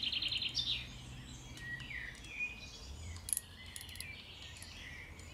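Small birds chirping in short calls over a steady low hum. A fast run of ticking dies out within the first second, and a few sharp clicks come about three seconds in, from the spinning reel being handled.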